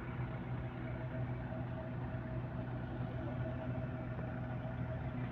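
A vehicle engine running steadily at an even speed, a low constant hum with no revving.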